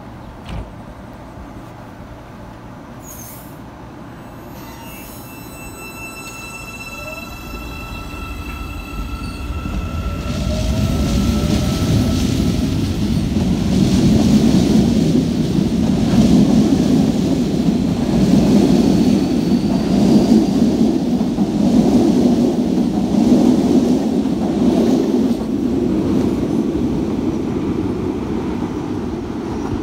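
CPTM series 9500 electric train pulling out: steady electrical tones and a rising motor whine as it starts to move, then loud rolling wheel-and-rail noise from about ten seconds in as the cars pick up speed past the platform.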